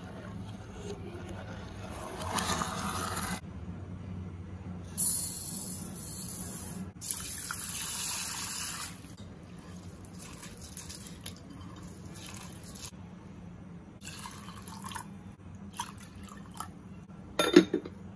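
Black rice being washed by hand in a bowl of water: several bouts of splashing and swishing water as the grains are rubbed and stirred. Near the end, a sharp clink as a glass lid is set onto the bowl.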